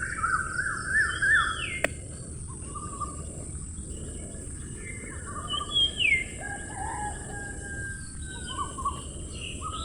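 Birds chirping and calling: quick zigzag chirps, short notes that slide downward, and scattered tweets, over a steady high hiss.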